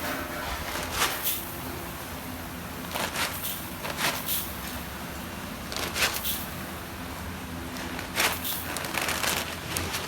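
Food-preparation handling sounds: irregular clicks, crackles and rustles roughly every second or two over a steady low hum.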